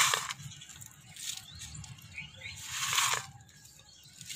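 Potting soil being scooped and poured into a terracotta pot around a plant's root ball: hissing, rustling bursts of falling soil, the loudest about three seconds in.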